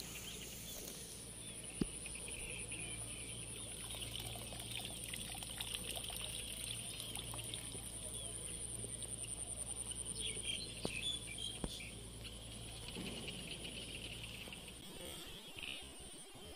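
Outdoor field ambience: a steady high-pitched buzz over faint trickling, pouring water, with a low rumble and a few sharp clicks.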